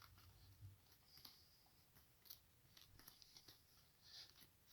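Near silence, with faint scattered light clicks and soft rustles of the plastic catcher's helmet and chin guard being handled.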